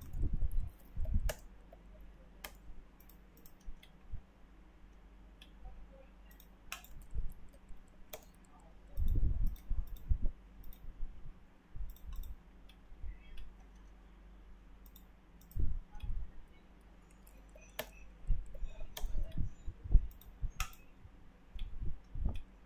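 Irregular clicks from a computer mouse and keyboard as CAD commands are entered, mixed with a few louder low, muffled thumps.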